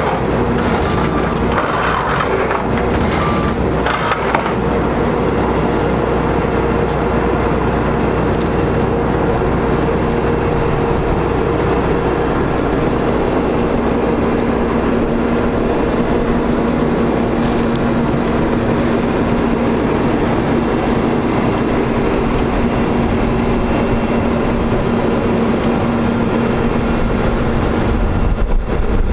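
Diesel engine of a digger derrick truck running steadily, driving the hydraulics while the outriggers are worked, with a steady whine that holds through the middle. A few knocks come in the first seconds.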